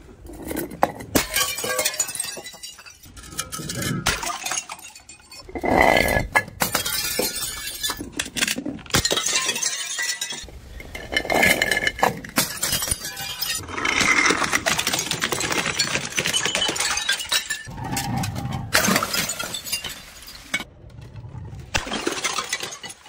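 Glass jars and bottles tumbling down concrete steps and smashing, one after another, with glass shattering and shards clinking.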